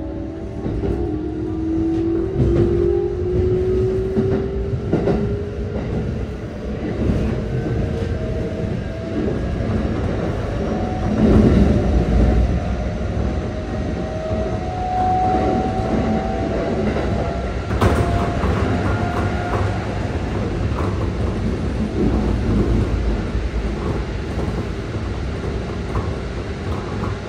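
Keikyu 600 series train's Mitsubishi GTO-VVVF inverter and traction motors heard from inside the car: whining tones that climb in pitch at the start and again about halfway through, over a steady rumble and clatter of wheels on rail. A sharp click comes about two-thirds of the way in.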